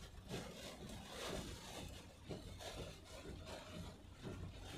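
Heavy rain beating on the roof and windshield of a moving car, over a low road rumble.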